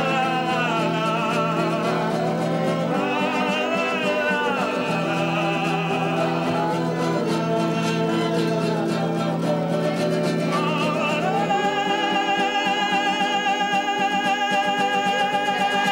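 Live folk-style song: a man singing loudly with vibrato, backed by a strummed acoustic guitar and a violin. Near the end the voices and instruments settle into long held notes.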